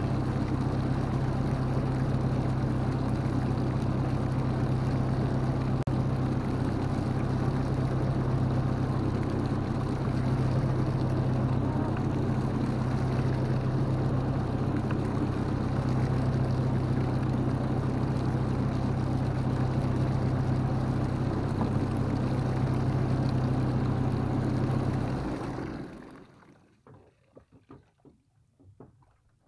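Boat engine running steadily with a low, even hum, then cutting out near the end and leaving only faint sounds.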